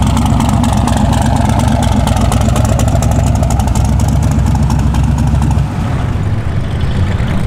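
Camaro's twin-turbo 427 cubic-inch LS V8 idling with a choppy, uneven beat. The low rumble eases off about three-quarters of the way through.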